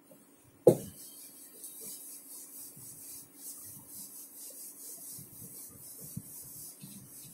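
A whiteboard duster wiping across a whiteboard in repeated strokes. One sharp knock comes under a second in and is the loudest sound.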